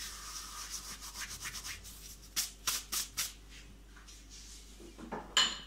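Roasted cumin seeds being crushed between the palms: a dry, scratchy rubbing for about two seconds, then four short, louder rubs. A brief louder noise follows near the end.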